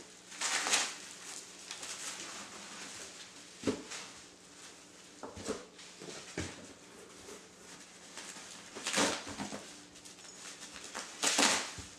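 Plastic packaging and bubble wrap rustling in short bursts as items are handled in a large cardboard box, with a few light knocks in between.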